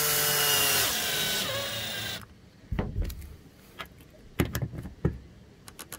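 Cordless drill driving an eye bolt down into an underfloor mount, its motor whine dropping in pitch as it loads up, then stopping about two seconds in. A few short clicks and knocks follow.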